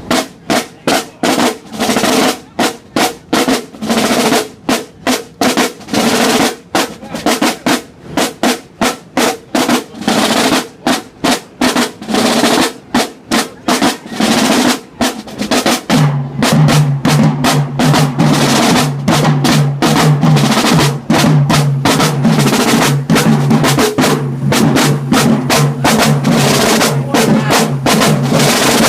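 High school marching band drumline playing a march-in cadence: rapid snare strokes and rolls with bass drums. About halfway through, a low held, pulsing pitched note joins under the drums.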